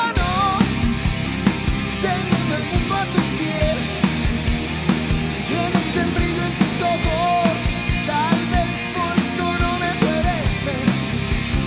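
Rock band playing live through an instrumental passage: regular drum hits with bass and guitars, under a lead melody that bends up and down in pitch.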